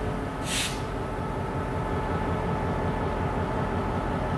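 EMD GP38-2 diesel-electric locomotive, with its 16-cylinder two-stroke 645 engine, idling steadily while standing still. A short hiss comes about half a second in.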